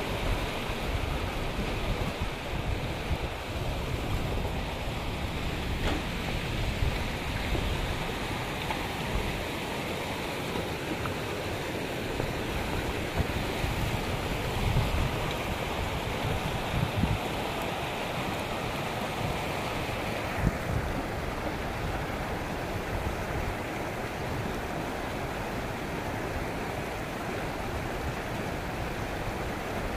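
Steady rushing of a shallow, rocky river flowing over stones, with irregular low rumbles of wind on the microphone.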